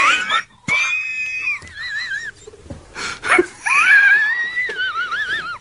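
A man's uncontrollable laughing fit: high-pitched, wheezing squeals of laughter with a wavering pitch, one about a second in and a longer one in the second half, broken by short gasps for breath.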